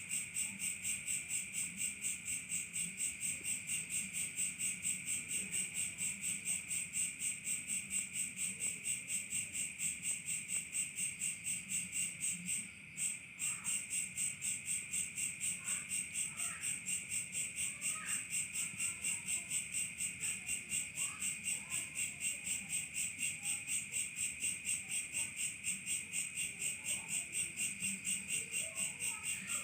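A chorus of night insects chirping in a steady, even pulse, about three to four pulses a second. The chorus dips briefly about halfway through, and a few faint chirps sound beneath it.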